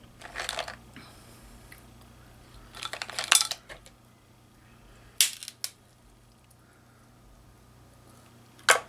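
Sharp clicks and clatters of hard seafood shells and utensils while eating mussels and snow crab legs, in a few short clusters: one near the start, one around three seconds in, and single sharp clicks past the middle and near the end.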